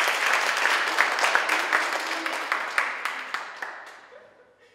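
A small audience applauding, the many separate claps thinning out and fading away about four seconds in.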